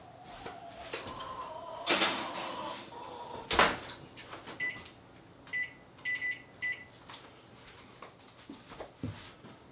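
Kitchen oven in use: clatter and a squeak as the door opens and a pan goes in, then the door shuts with a loud knock about three and a half seconds in. Five short electronic beeps follow from the oven's control panel as it is set.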